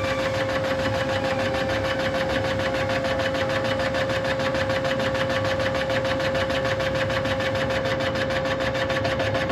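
CNC line boring machine running steadily while boring the main bearing bores of an engine block, a steady mid-pitched whine with a fast, even pulsing.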